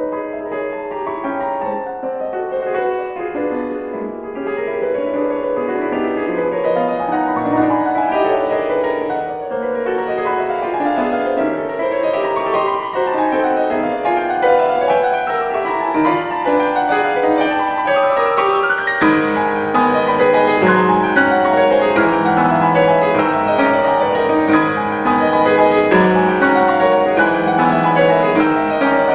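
Background solo piano music, a flowing piece of many notes.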